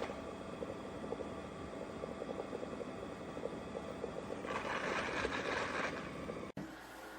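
Robot vacuum-mop running: a steady motor whir with a fast fine rattle, and a louder hiss for about a second and a half past the middle. It cuts off suddenly near the end and gives way to a quieter hum.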